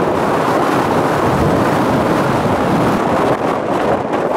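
Strong wind blowing across the microphone: a loud, steady rushing noise.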